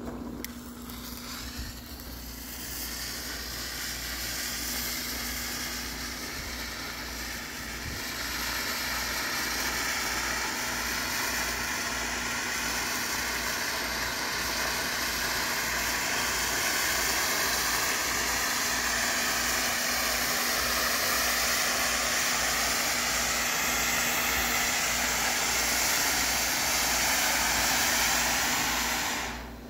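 Freedom Fireworks Vesuvius consumer ground fountain spraying sparks with a steady, loud hiss. The hiss starts as a quieter fizz while the fuse catches, grows louder after a couple of seconds and again about eight seconds in, then cuts off suddenly near the end as the fountain burns out.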